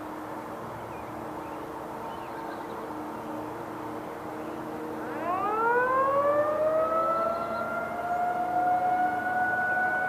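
Federal Signal 2001-series outdoor warning siren winding up about halfway in. Its pitch rises and then settles into a steady wail with several tones together, sounding for its scheduled monthly test.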